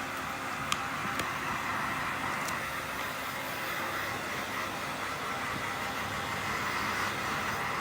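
Hand-held hair dryer blowing steadily with a constant whine, with a few light clicks in the first few seconds.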